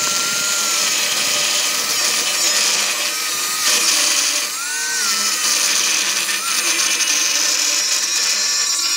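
Angle grinder with a cutting disc slicing through thick steel plate, about 6 to 8 mm, running steadily, its motor whine wavering and dipping in pitch as the disc bites.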